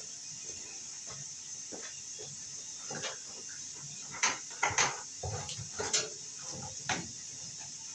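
Sharp knocks, clicks and scrapes, several in quick succession between about four and seven seconds in, as a stiff electrical cable is fed up through a drilled hole in the wooden floor framing. A steady high hiss runs underneath.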